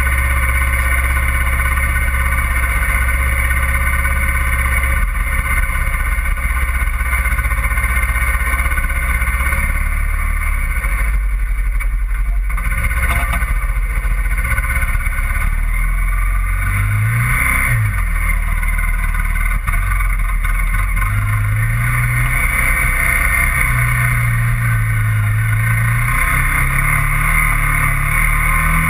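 A small vehicle's engine running steadily while it tows a sled over snow. Its pitch rises and falls several times in the second half.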